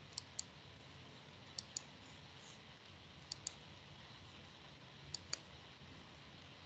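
Computer mouse clicks: four pairs of short, sharp clicks about a second and a half apart, over faint room hiss.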